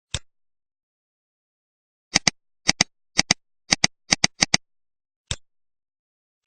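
Computer mouse clicks over dead silence: a single click, then six quick double-clicks in a row, then two more single clicks.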